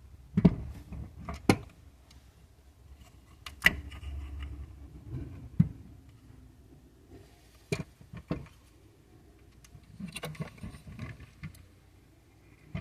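Scattered clicks and knocks of a 1:9 die-cast Harley-Davidson trike model being handled and turned over in the hands, about half a dozen sharp ones at uneven intervals.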